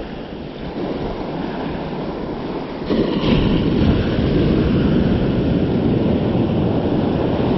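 Ocean surf breaking on a sandy beach, with white water washing up the shore. About three seconds in a bigger wave breaks close by, and the rushing sound grows louder and stays up.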